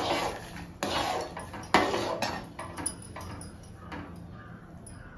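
Steel ladle knocking and scraping against a brass pot as rice flour is stirred into boiling water. Several sharp clanks come in the first three seconds, the loudest near the middle, with a last lighter knock about four seconds in.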